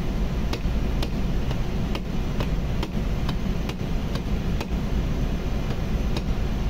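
Steady loud machinery drone, heavy in the low end, with sharp metallic ticks about twice a second.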